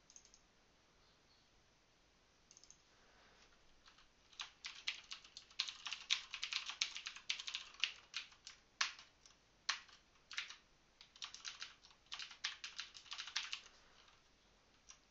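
Typing on a computer keyboard: quick runs of key clicks that start about four seconds in and go on with short pauses until near the end.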